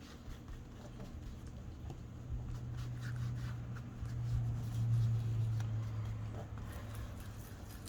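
Light dabbing and rubbing of an ink pad on the edges of a paper cutout, a few faint taps. Under it runs a low steady hum that grows louder in the middle and then fades.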